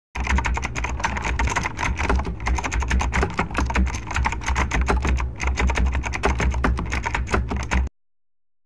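Rapid keyboard typing clicks, many keystrokes a second, laid over the text being typed onto the screen. They stop abruptly near the end.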